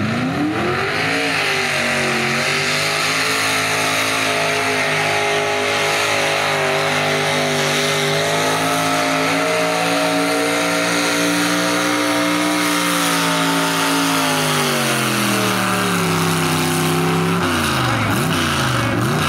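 V8 engine of a Minneapolis-Moline hot rod pulling tractor at full throttle hauling a weight-transfer sled: the revs climb at the launch, hold high and steady, then sag over a few seconds as the sled pulls the engine down. Near the end the engine drops off and gives a few short revs.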